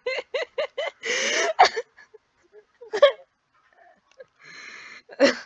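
A person laughing in quick, even pulses, ending about a second in with a long wheezy breath. A few short vocal noises and a breathy hiss follow.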